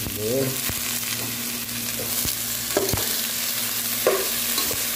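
Sliced eggplant, onion and tomato sizzling in an aluminium pot as a slotted metal spatula stirs them, with the spatula knocking and scraping against the pot several times.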